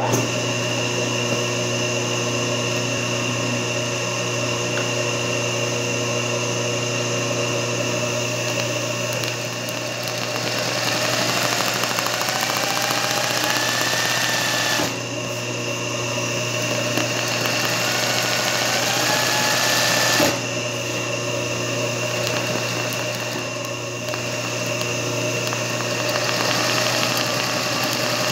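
Singer 20U industrial zigzag sewing machine running steadily while stitching free-motion satin-stitch embroidery in a hoop, starting up at the very beginning. Its speed eases off and picks up a few times, with a rising whine about 11 and 17 seconds in.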